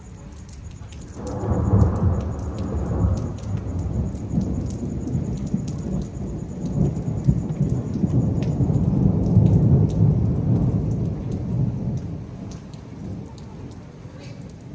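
A long rolling rumble of thunder that builds about a second in and dies away over some ten seconds, over steady rain with scattered drop ticks.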